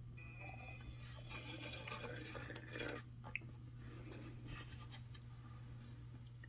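Faint rustling and rubbing of thin cord being drawn through a macramé square knot and pulled tight, in a few short spells. A steady low hum runs underneath.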